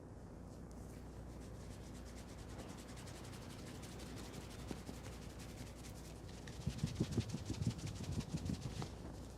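Hands rubbing briskly over hair and scalp during a head massage: a fast, rhythmic rasping rub, joined by heavier, muffled strokes in the last few seconds.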